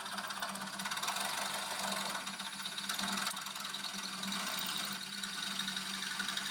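Welding arc crackling steadily with a low electrical hum, filling in a worn door-hinge pin hole with weld.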